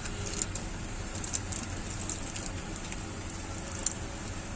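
Steady background hum and hiss with a handful of small, sharp clicks and ticks scattered through, as of small parts and tools being handled on a workbench.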